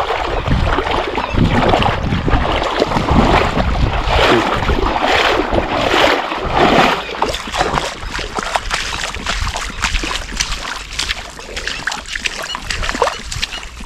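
A hooked snakehead (murrel) thrashing and being dragged through shallow, weedy water, splashing hard. The splashing thins out in the second half as the fish is pulled onto the mud bank. A low rumble of wind on the microphone runs underneath.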